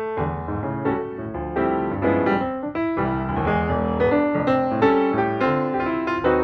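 Background piano music, a quick run of struck notes over a steady lower accompaniment.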